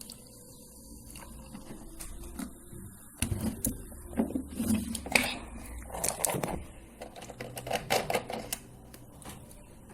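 Rapid, irregular crackling and clicking held close to the microphone: a few scattered clicks at first, then dense bursts from about three seconds in until nearly nine seconds.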